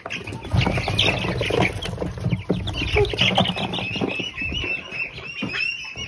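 A brood of young meat chicks peeping, many short high chirps overlapping, denser in the second half. Under them, rustling and knocks for most of the first four and a half seconds.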